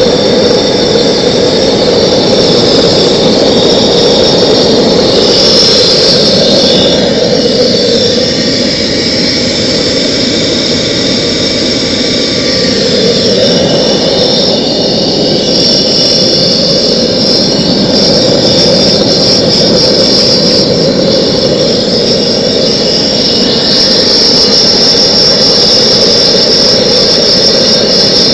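Homemade propane forge's gas burner running steadily and loudly: a constant rushing hiss of the propane flame firing down into the firebrick chamber.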